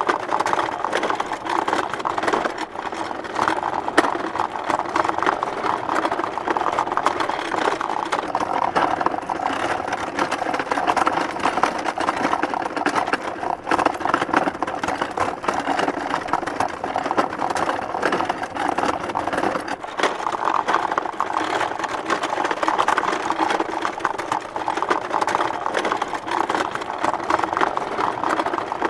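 Small wooden handcart pulled along a bumpy dirt road: a continuous dense rattling and clattering of the wooden body and wheels, with small bangs as it jolts over bumps.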